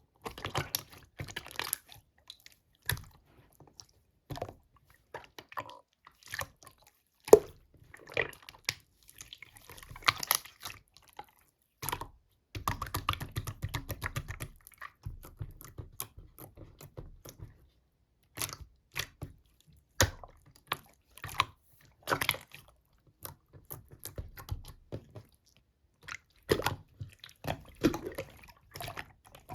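Slime being squished and poked by hand, giving irregular wet clicks, pops and crackles, with a denser run of crackling squelches about halfway through.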